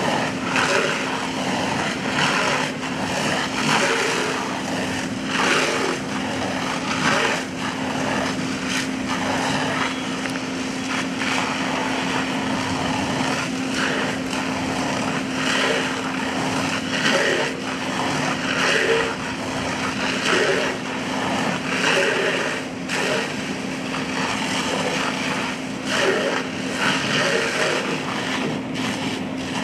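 Fire hose stream spraying onto a burning garbage pile, a continuous hiss that swells and fades, over an engine running steadily at one pitch.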